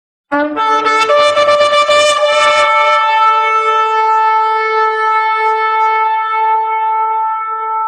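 A shofar blown in one long blast: it sounds a moment in with a rough, breaking start for about two seconds, then settles into a steady held note.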